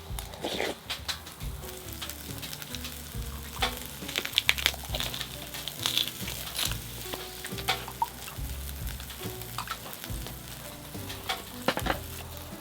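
Irregular crackling and sizzling from a charcoal and wood fire, over soft background music.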